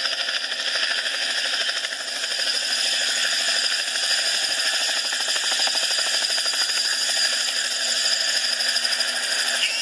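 A machine running steadily with a fast rattling buzz and a high, steady whine.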